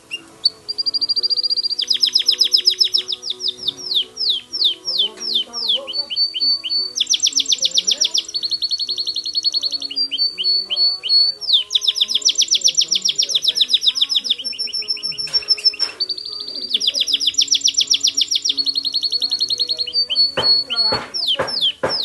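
Spanish Timbrado canary singing a continuous song of fast trills alternating with held, high whistled notes, with a few quick falling sweeps near the end.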